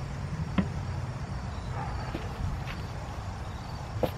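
Damp paper towel rubbing over a car's rear window glass, faint against a steady low outdoor rumble, with two sharp clicks, one about half a second in and one near the end.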